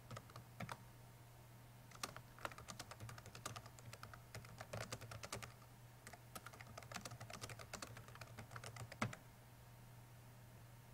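Typing on a computer keyboard: quick runs of faint key clicks from about two seconds in, ending with one louder keystroke a couple of seconds before the end, over a faint steady hum.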